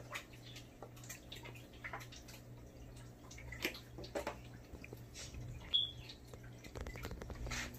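Aquarium water trickling and dripping, faint, over a steady low hum, with scattered small drip-like ticks.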